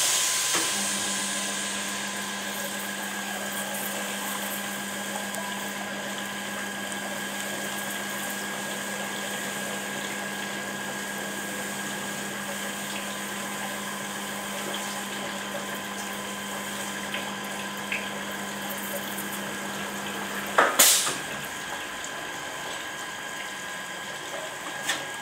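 100 kVA resistance seam welder running a weld: a steady electrical hum starts about a second in and lasts about 20 seconds while the water-cooled copper wheel electrodes roll along the seam. An even hiss and splash of cooling water runs under it. The hum stops with a sharp clack, and a smaller click comes near the end.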